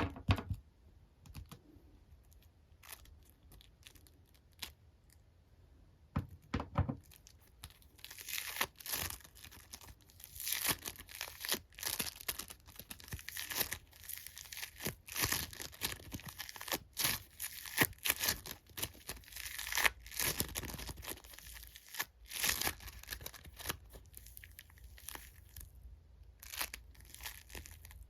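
Hands working plastic Mrs. Potato Head parts out of a foam squishy. Scattered light clicks come first, then a long stretch of crinkly, tearing, scratchy handling noise from the foam and plastic.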